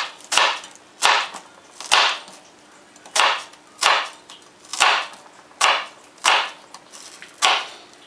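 Kitchen knife slicing through an onion onto a wooden cutting board: about eleven crisp cuts a little under a second apart, each a sudden crunch that fades quickly.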